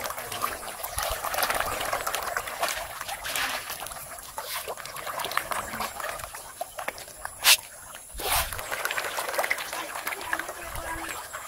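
A mass of feeding tilapia churning and splashing at the pond surface, a steady crackle of many small splashes. A sharp click comes about seven and a half seconds in, with a thud just after.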